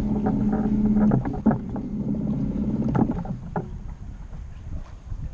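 A boat's motor humming steadily on choppy water, with a few sharp knocks against the hull. The hum stops about three and a half seconds in, leaving the wash of wind and water.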